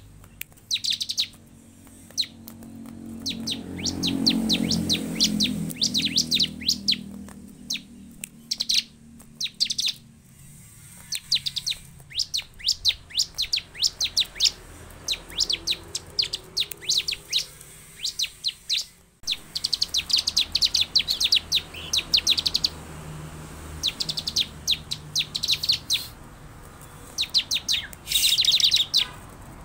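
Bar-winged prinias (ciblek) calling: rapid trains of sharp, high chirps in bursts of a second or two, repeated with short pauses. A low rumble swells and fades about four seconds in.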